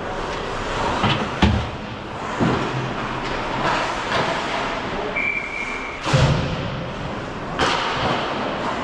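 Ice hockey play: a steady scrape of skates on the ice, broken by several sharp knocks and thumps of stick, puck and pads, the loudest about a second and a half in and again about six seconds in. A short, faint high steady tone sounds about five seconds in.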